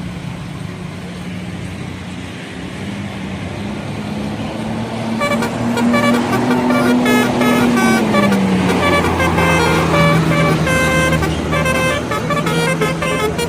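A bus's engine runs with a low steady tone. From about five seconds in, its telolet horn, a set of multi-tone air horns, plays a quick melody of changing notes over the engine. The engine's pitch drops about eight seconds in.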